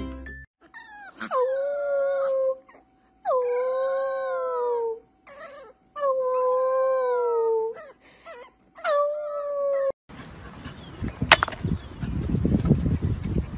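A French bulldog puppy howling: four drawn-out howls of about two seconds each, with short gaps and a few brief yelps between them. At about ten seconds the howling stops, and a puppy scrambles over a bench, with scuffling and a single sharp knock.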